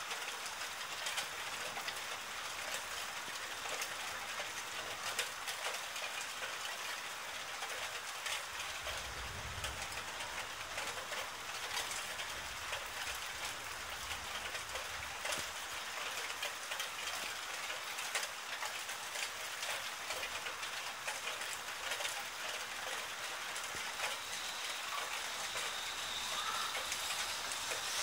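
Steady rain falling, a dense patter of small drop ticks. About nine seconds in, a faint low rumble of distant thunder rises and dies away over a few seconds.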